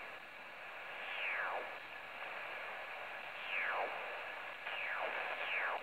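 TEN-TEC SP-325 HF receiver in USB being tuned up across the 20-metre band: a steady band hiss, with four falling tones as the dial sweeps past signals.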